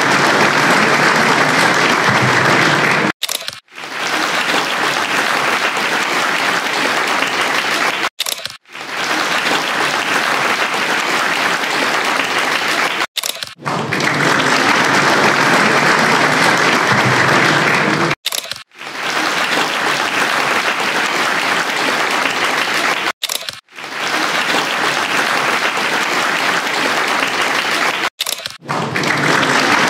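Audience applauding steadily, in sections about five seconds long, each cut off abruptly by a short gap before the next begins.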